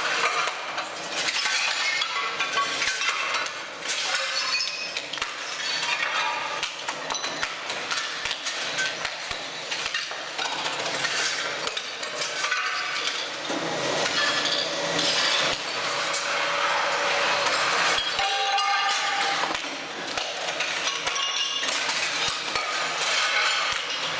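Ceramic floor tiles cracking and breaking away under the blade of a tracked floor stripper, the shards clinking and grating against each other in a steady stream of sharp clicks and crunches.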